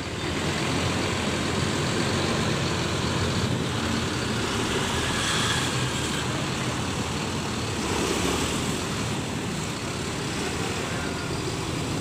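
Intercity coach bus engine running as the bus pulls away and drives off, a steady low rumble that fades a little as it moves away.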